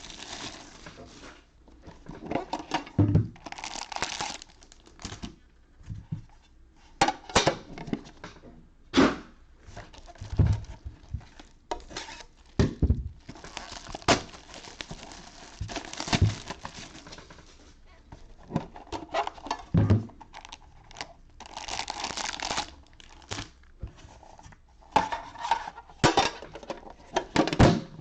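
Foil baseball card packs crinkling as they are handled and pulled out of metal card tins, with irregular knocks and clinks as the tins and packs are set down.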